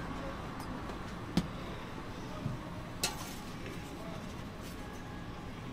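A few sharp clicks and knocks of kitchen utensils on a metal griddle plate: one about a second and a half in, a softer knock, and a clack at three seconds. Steady low background noise runs under them.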